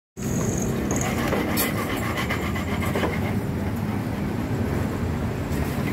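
Steady engine and traffic noise from the street, with a couple of light clicks about one and a half and three seconds in.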